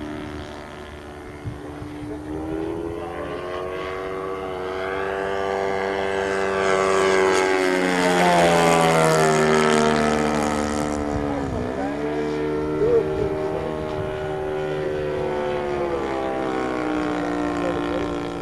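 Piston engine of a radio-controlled P-51 Mustang model plane running steadily in flight with its propeller buzzing. In a flyby the note swells and rises as the plane approaches, is loudest about eight to ten seconds in, then drops in pitch as it passes and goes on more steadily.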